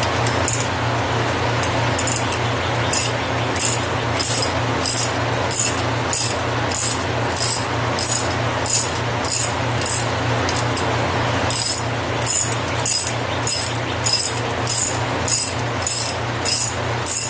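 Socket ratchet clicking in short strokes, about two a second, as it draws down the camshaft gear bolt. The clicking stops briefly a little past the middle, then carries on.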